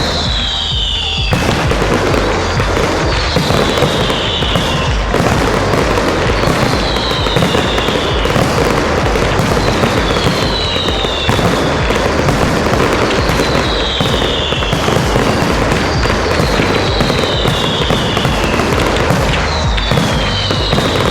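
Fireworks display: continuous dense crackling and banging of aerial fireworks, with a falling high tone that repeats about every three and a half seconds.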